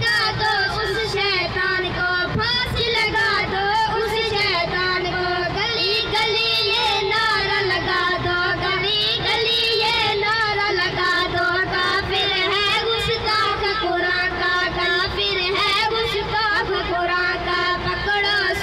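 Young boys singing an Urdu devotional kalam in praise of the Quran into microphones, one high voice carrying long, wavering, ornamented phrases without pause.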